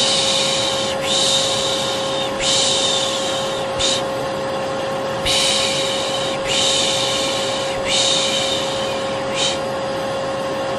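Vacuum cleaner running with a steady drone and hum, under a person's rhythmic soothing 'shh' shushing for a baby: about eight shushes, most about a second long, with two short ones.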